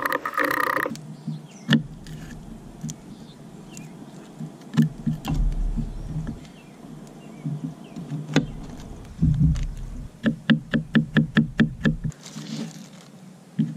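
Knocks and clatter from food preparation. Scattered single knocks give way, about ten seconds in, to a quick run of about a dozen even knocks at roughly five a second.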